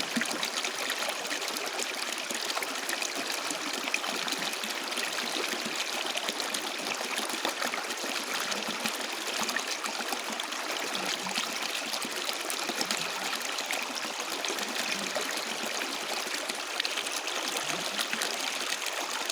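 Water flowing and trickling in a steady, continuous babble, full of small splashes and gurgles, as of a stream running over stones.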